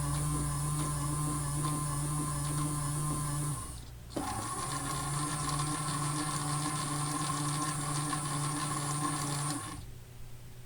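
AEG Electrolux Lavamat Klein toy washing machine's small electric motor turning the drum on the rinse cycle, a steady whir with a high whine. It stops about four seconds in, starts again a moment later, and stops near the end.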